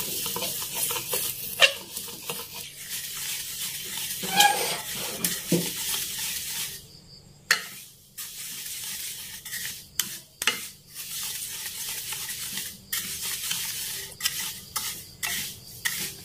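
Wooden spatula stirring and scraping black sesame seeds around a stainless steel pan as they dry-roast, with a steady hiss and crackle from the hot seeds and sharp knocks of the spatula against the pan, several close together near the end.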